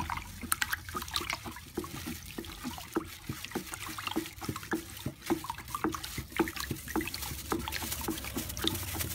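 Water in a plastic bucket being stirred vigorously with a stick, with rapid, irregular splashing and sloshing, as nitrosol thickener powder is poured in to keep it from caking.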